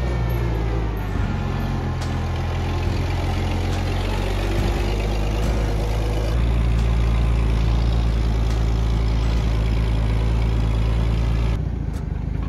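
Engine of an old propane-fuelled Baker forklift running as it is driven with a load of steel panels on its forks, a steady hum that gets a little louder about halfway through and drops in level shortly before the end.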